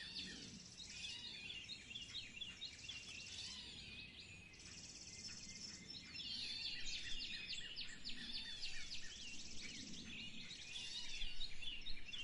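Spring birdsong chorus: several birds chirping and calling in quick, overlapping high notes and sweeps, with recurring high buzzy trills about a second long each.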